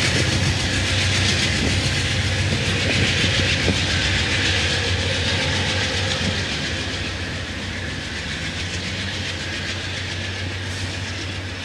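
Shore Line East commuter train pulling out, pushed by its GE P42 Genesis diesel locomotive: a steady low engine drone under wheel and rail noise, slowly fading as the train moves away.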